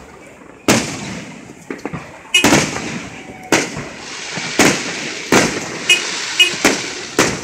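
Aerial firework shells bursting overhead: about ten sharp bangs, coming closer together in the second half, with a steady crackling hiss from the falling stars between them.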